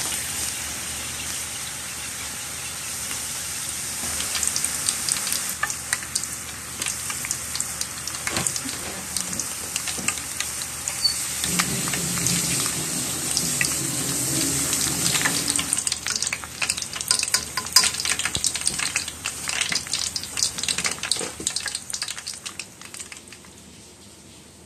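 Batter-coated shiso leaves deep-frying as tempura in hot oil: a steady sizzle full of small crackling pops, which fades out near the end.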